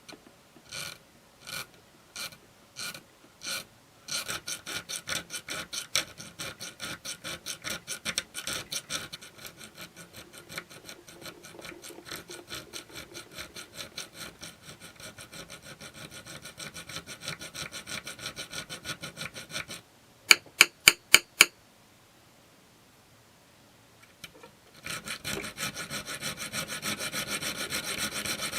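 A hand file rasping back and forth on the steel of a Morakniv knife blade. It starts with a few slow strokes, then runs at about three strokes a second. About two-thirds through come five short, sharp, much louder strokes, then a pause of a few seconds, and near the end faster, steady filing resumes.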